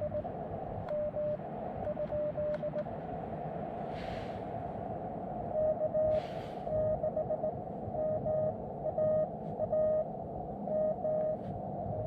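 Morse code (CW) tones from a portable amateur radio transceiver's speaker: a steady note keyed into dots and dashes over receiver hiss. The code is fainter at first and louder from about halfway through. Two short rushes of noise come in around the middle.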